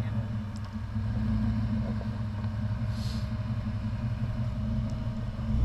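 Rock crawler's engine running at low revs, a steady low rumble as the vehicle creeps over the rocks.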